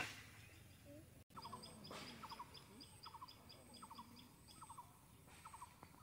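Faint repeated animal calls: a steady series of high chirps, about four a second, with quick groups of three or four lower notes about every second. A sharp click at the very start, and the sound drops out for an instant about a second in.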